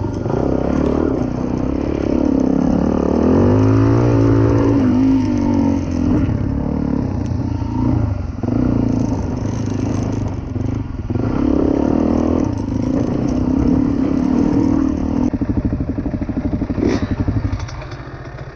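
Suzuki DR-Z400E's single-cylinder four-stroke engine under way on a dirt track, revving up and down as the rider works the throttle, then falling to an even low beat for the last few seconds as the bike slows to a stop.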